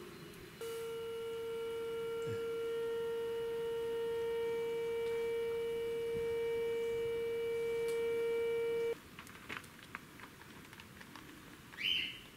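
Stovetop whistling kettle whistling on a wood-fired cook stove: one steady whistle that comes on just under a second in, swells slightly, and cuts off suddenly near 9 s. A bird chirps once near the end.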